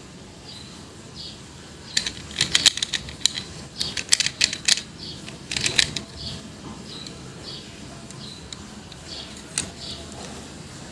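Bursts of sharp clicks and rattles from objects being handled, between about two and six seconds in, over a small bird chirping about twice a second in the background.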